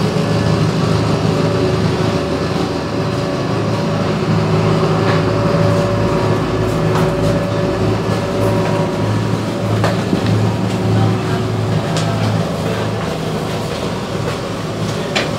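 Diesel engines of a cacilheiro river ferry running steadily, heard as a low, even drone inside the passenger cabin. A few sharp clicks near the end.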